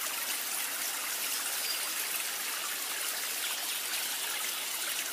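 A steady, even hiss like running water, unchanging in level.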